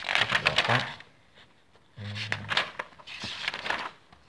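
Sheets of paper rustling and sliding as they are handled and leafed through, in two bursts, with a short hummed voice sound about two seconds in.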